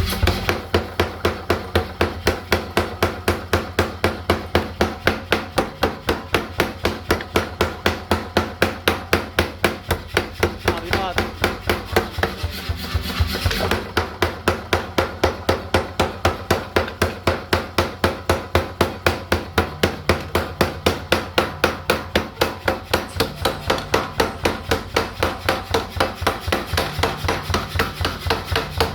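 Blacksmith's hammer blows on metal in a steady rhythm, about three to four strikes a second, broken briefly near the middle by a rubbing sound. A low steady hum runs under the strikes for the first half.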